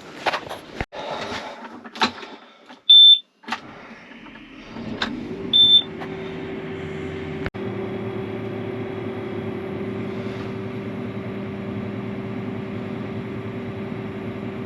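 Two short, loud, high beeps about two and a half seconds apart from a combine harvester's cab warning alarm, among a few knocks and clicks. Then the combine's diesel engine starts about five seconds in and runs steadily.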